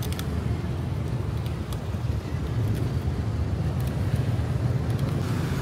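Steady rumble of street traffic, with cars and motorbikes running past, and a few faint clicks.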